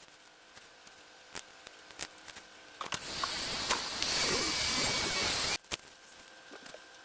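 Hair dryer blowing for about two and a half seconds, a steady rush of air with a faint high whine, then switched off suddenly. A few light clicks of handling come before it.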